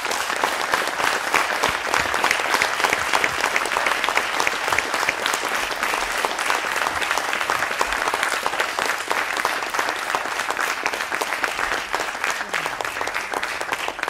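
Audience applauding steadily with many hands clapping, easing off slightly toward the end.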